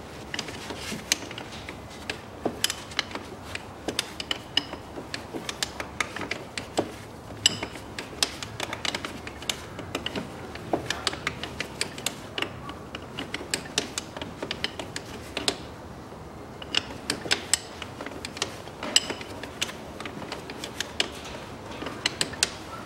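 Hand ratchet wrench clicking in quick irregular runs, with metal clinks, as a power-steering line fitting is worked loose.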